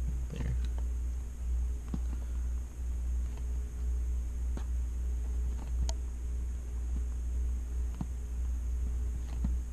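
Steady low hum throughout, with a handful of faint, separate taps a second or more apart as a pen tip marks dots on tracing paper over a worksheet.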